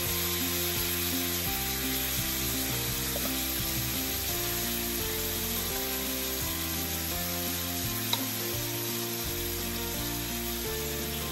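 Chili chicken sizzling on a hot iron sizzler plate: a steady hiss, with soft background music underneath. A single sharp click sounds about eight seconds in.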